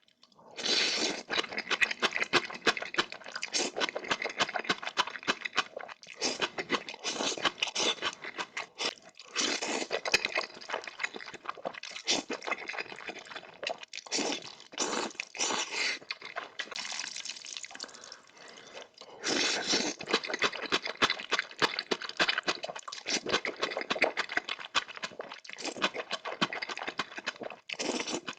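Wet eating sounds: noodles being slurped and chewed, with sticky smacking and clicks, in bursts broken by short pauses.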